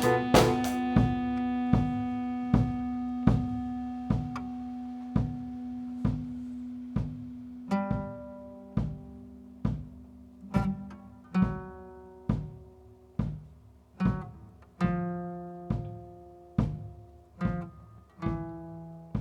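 Slow instrumental music: single plucked-string notes, about one a second, each fading quickly. Under them a low held note dies away over the first half. A quick run of notes comes at the very start, and fuller higher notes come in later.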